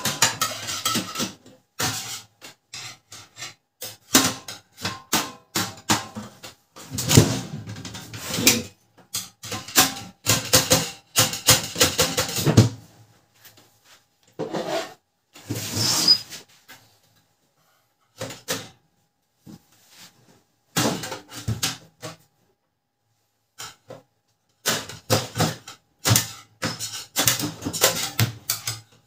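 Plastic and metal parts of a Canon LBP 2900 laser printer being handled and pulled apart by hand: irregular clicks, knocks and scraping in bursts, with short pauses between them.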